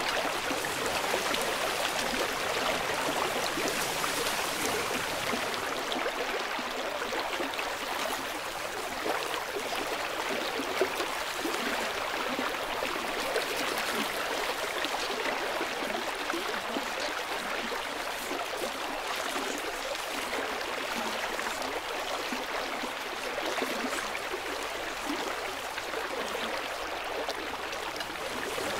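Rushing mountain stream: whitewater pouring steadily over and between boulders in a continuous splashing rush.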